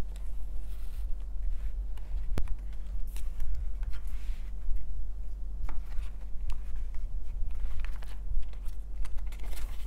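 Soft paper rustles and small clicks of a small scrapbook diary being handled and its pages turned, over a steady low hum.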